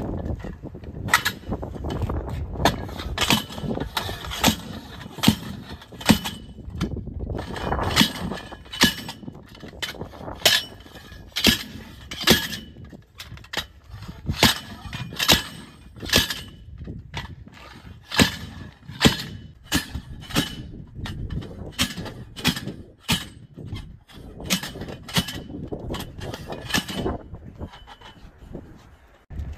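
Repeated metallic clangs, about one or two a second, each with a short ring: a long steel tire bar being driven down between the bead of a light-truck tire and its steel wheel rim to break the bead and lever the tire off.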